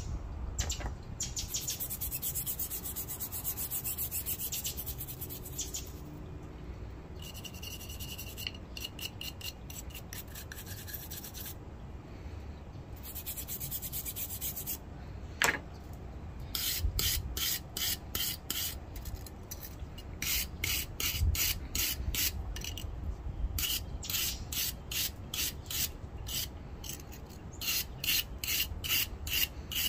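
Steel hand file scraping against the edge of another file in stretches of strokes. Then a wire brush scrubs back and forth over a file's teeth in quick repeated strokes, clearing out the clogged teeth.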